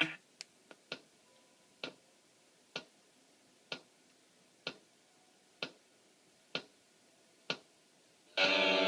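A few quick clicks, then sharp, evenly spaced ticks about once a second, like a clock ticking; music cuts in near the end.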